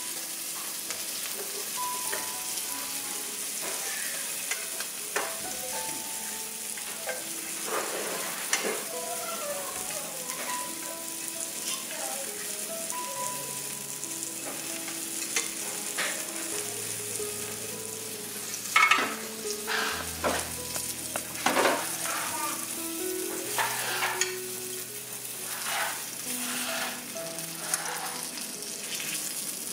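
Sausage sizzling in a frying pan on a gas burner, with repeated scrapes and knocks of a utensil and pans as the meat is stirred and moved, busiest around the middle.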